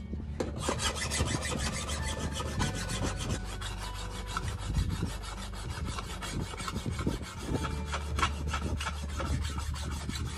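Hand file sharpening the edge of a removed rotary lawnmower blade laid on a wooden table: a quick, steady run of rasping back-and-forth strokes, starting about half a second in.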